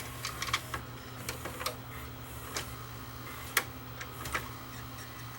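Hitachi DV-PF74 DVD/VCR combo's tape mechanism clicking irregularly as it starts playing a tape, over a steady low hum.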